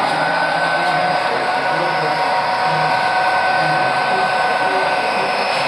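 Model Southern Pacific diesel locomotives running along the layout track: a steady whirring hum with a thin, steady whine.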